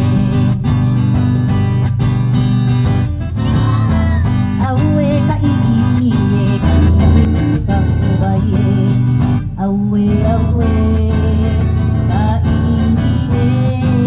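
Live Hawaiian music: strummed acoustic guitars keeping a steady rhythm under a sung melody.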